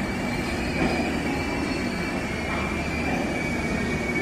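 Express train's passenger coaches rolling slowly past into the platform as the train arrives. Their wheels rumble steadily on the rails under a thin, steady high squeal.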